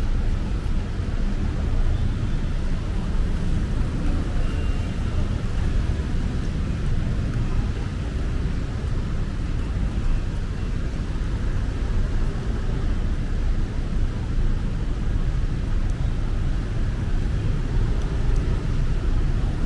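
Steady city street noise: a constant low rumble with a fainter hiss, typical of road traffic on wet streets.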